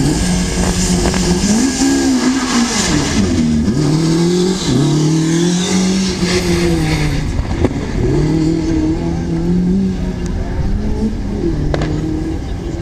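Rally car engine revving, its pitch climbing and dropping several times over.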